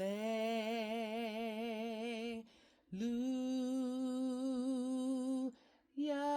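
A woman's voice, unaccompanied, humming or singing three long wordless notes with a wavering vibrato, a short breath between each. Each note is pitched a little higher than the last.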